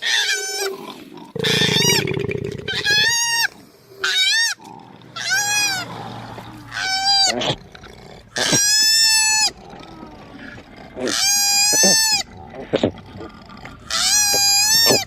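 Koala squealing: a series of about eight high, wailing cries, each rising then falling in pitch and lasting under a second or so, spaced a second or two apart. A rough low grunting noise sits under the second cry.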